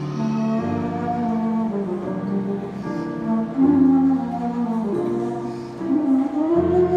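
Flute and electronic keyboard duo playing live: a melody moving up and down in long held notes over sustained keyboard chords, amplified through PA speakers.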